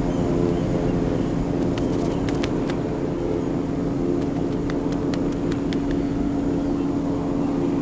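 Turboprop engines of a Lockheed C-130 Hercules transport running steadily, a continuous droning hum. A few sharp clicks stand out over it in the middle.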